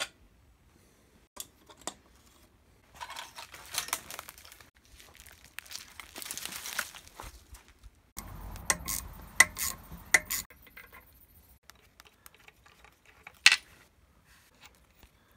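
Rustling and clattering of engine parts being handled, including a removed wire harness with its plastic connectors, with scattered sharp clicks. The densest clatter comes about two-thirds of the way in, and one sharp click comes near the end.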